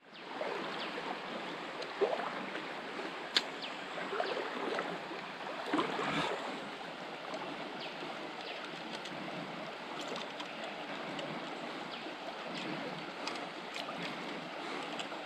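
Shallow creek water flowing and babbling steadily, with a few faint clicks and knocks scattered through it.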